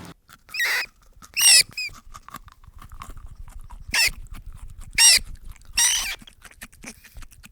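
Short, high-pitched squealing calls from a young animal, about six of them spaced irregularly a second or so apart.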